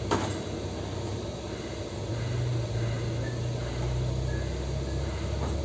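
TIG welding arc hissing steadily over a low, steady machine hum, with a sharp click just after the start.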